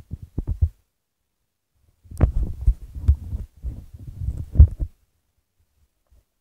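Irregular low thumping and rubbing in two bursts, the longer one from about two seconds in to about five seconds in, with a few sharper clicks.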